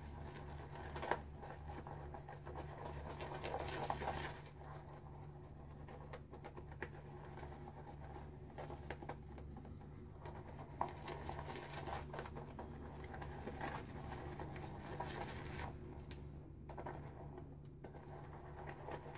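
Boar-bristle shaving brush whipping shaving cream into lather in a bowl. A faint, continuous swirling with occasional small clicks.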